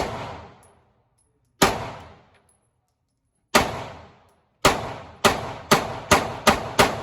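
A series of gunshots, each fading out quickly: three shots about two seconds apart, then six faster ones at about two a second in the second half.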